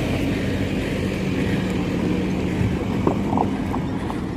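Engine of a police pickup truck running with a steady low hum close by.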